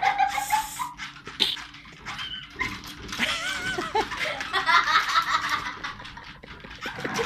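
Small dogs whining and yipping in short, rising-and-falling calls, busiest from about three seconds in, over a faint steady hum.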